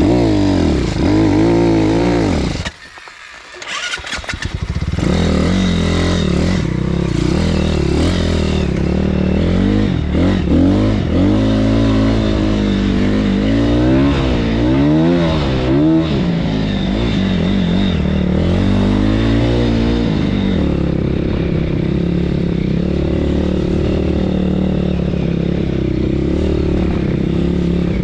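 BSE PH 150 pit bike's 150 cc single-cylinder four-stroke engine being ridden off-road, revs rising and falling repeatedly as the throttle is worked. The engine sound drops away sharply for about a second and a half near three seconds in, then picks up again, and settles to a steadier drone in the last several seconds.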